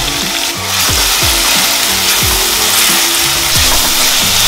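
Crushed shallots, ginger, garlic and green chillies sizzling in hot coconut oil in a clay pot. The sizzle gets louder just under a second in as the paste goes in, and a spatula stirs and scrapes against the pot. Background music with a steady beat plays underneath.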